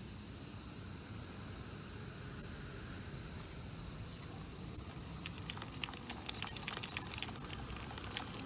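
Steady high-pitched insect drone over a low outdoor rumble. About halfway through, a run of light, irregular clicks starts and lasts about three seconds.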